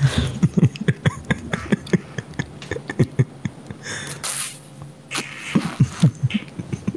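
Beatboxing into a close microphone: quick mouth pops and clicks in two runs, with a short hiss about four seconds in.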